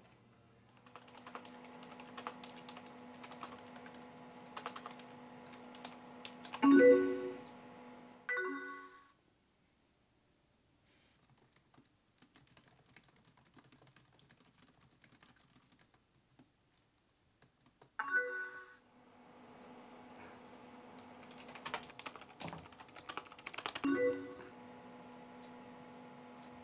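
Typing on a computer keyboard, with key clicks over a steady tone, broken by short instant-messenger alert chimes: two close together about seven seconds in, one at about eighteen seconds and one near the end. The first chime is the loudest. The typing stops for several quiet seconds in the middle.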